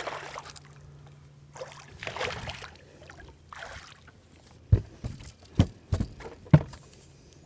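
Soft splashing and water noise around a small fishing boat as a just-caught small bass is handled, then four dull low knocks in quick succession a little past halfway.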